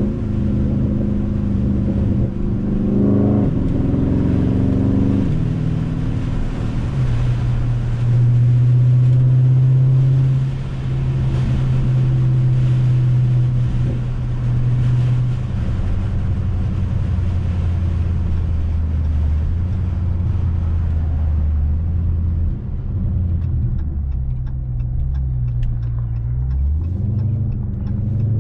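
2020 Dodge Charger Scat Pack's 392 HEMI V8, running a 93-octane tune with a mid-muffler delete, driving under way. The revs climb over the first few seconds and drop back about five seconds in. It then drones steadily at a lower pitch, easing off twice and picking up again near the end.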